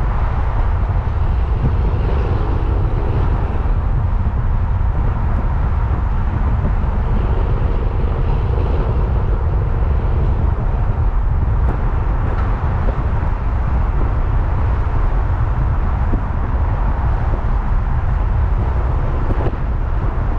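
Steady low road and engine rumble from a moving vehicle.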